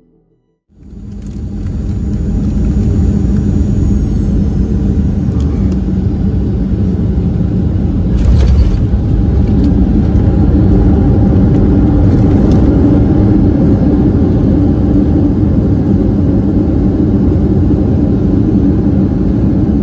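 Boeing 737-700 landing roll heard from inside the cabin: a loud, steady rumble of engines and wheels on the runway. It swells over the first couple of seconds, with a brief louder jolt about eight seconds in.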